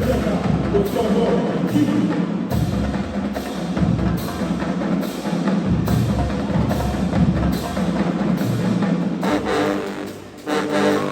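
Marching band music: heavy drumline hits with pitched horn parts over them, keeping a steady beat, thinning briefly near the end.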